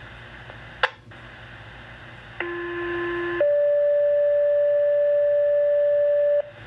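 Two-tone sequential pager alert over a fire dispatch radio channel: a lower steady tone for about a second, then a higher steady tone for about three seconds, setting off the water rescue team's pagers. It follows a squelch click, with radio hiss underneath.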